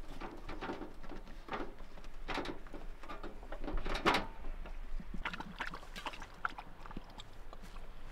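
Metal clatter and knocks of a Coleman two-burner propane camp stove being handled and slid out on a tailgate slide-out tray, a string of short, sharp sounds with the loudest knock about four seconds in.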